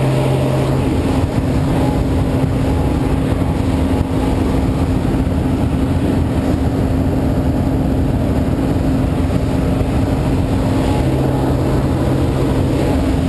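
Light aircraft's engine and propeller running steadily, a loud, even drone with a constant low hum, heard from inside the cabin.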